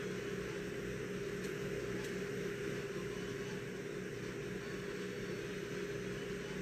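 Steady hum and air hiss of a parked car, heard inside the cabin.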